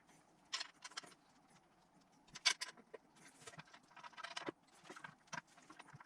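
Scattered light clicks, clinks and rustles of an intake manifold gasket and steel bolts being handled and started into the manifold by hand, with the sharpest click about two and a half seconds in.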